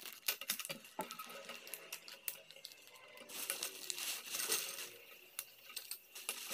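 Clear plastic bag crinkling as it is handled, mixed with sharp clicks and snaps of plastic robot-kit parts being cut from their frame.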